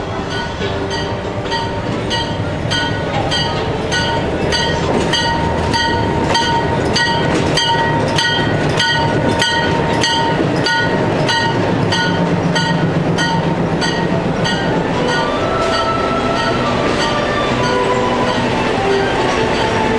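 PeruRail passenger train rolling slowly past at close range: the diesel locomotive running and then the carriages, with an even clacking of wheels, about two a second, that fades out in the last few seconds.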